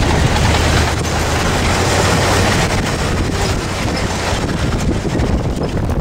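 An off-road SUV driving slowly over a rocky dirt road, heard at an open side window. The engine drones low and steady under a continuous crunch and clatter of tyres on loose gravel and stones, with wind buffeting the microphone.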